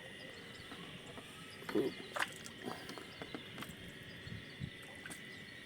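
Quiet outdoor ambience by the water: a faint, steady high-pitched hum, with scattered short clicks and a brief soft knock about two seconds in.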